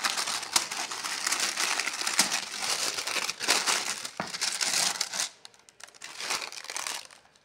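Tissue paper crinkling and rustling as it is pulled open and folded back by hand. The crinkling is dense and crackly for about five seconds, then mostly dies down, with a short bit more near the end.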